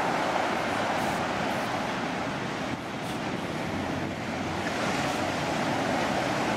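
Surf on a sandy beach: shallow waves washing up over the sand and draining back, a steady rush of water.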